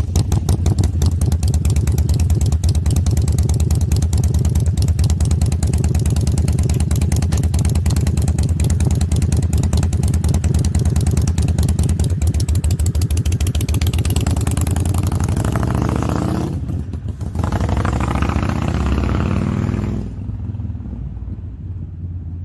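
Harley-Davidson Dyna Super Glide's Twin Cam V-twin engine running just after starting, with a steady rapid pulsing. About three-quarters of the way in the sound breaks off briefly and changes, and near the end it drops to a lower level.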